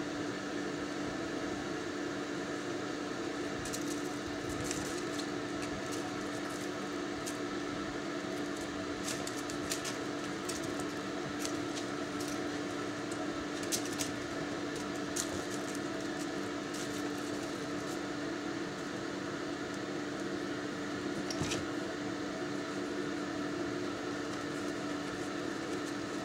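Steady mechanical hum with a low tone, with scattered light clicks and taps over it, thickest through the middle.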